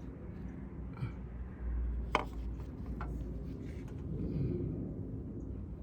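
A few light clicks and knocks from parts being handled during engine-bay work, with one sharper click about two seconds in, over a low rumble.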